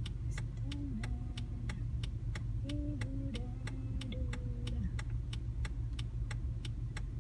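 Car's turn-signal indicator ticking steadily inside the cabin, several evenly spaced clicks a second, over the low steady sound of the idling engine.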